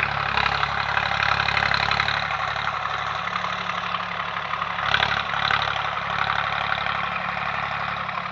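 Swaraj 744 tractor's diesel engine running steadily through an Eicher tractor silencer, with a brief louder swell about five seconds in.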